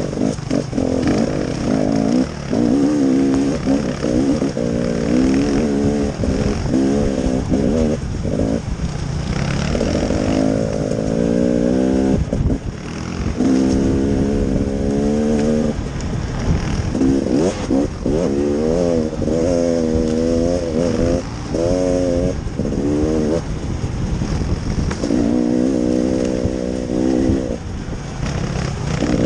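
Small engine of a motor vehicle running and revving, its pitch climbing and dropping again and again, with short lulls where the throttle eases off.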